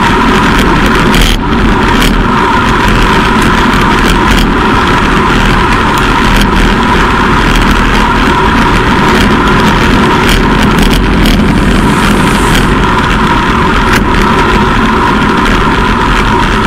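Loud, steady rush of wind on a bicycle-mounted camera's microphone at about 50 km/h, mixed with road-bike tyre noise on asphalt, with a few short knocks from road bumps.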